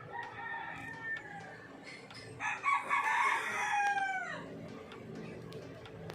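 A rooster crows once about two and a half seconds in, a call of about two seconds that falls in pitch at the end, after a fainter call at the start.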